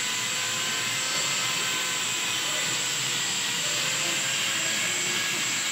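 Steady, even machine noise with a faint high whine over a hiss, from workshop machinery running; no single knock or event stands out.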